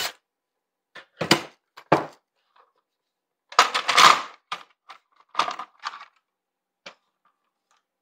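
Plastic top cover of a Poulan chainsaw being worked loose, lifted off and set down on a wooden workbench: a scatter of short clicks and knocks, with the loudest clatter about four seconds in.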